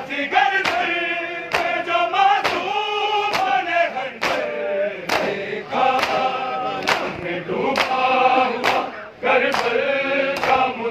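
Crowd of men chanting a noha in chorus, with hand strikes on bare chests (matam) landing in unison about once a second.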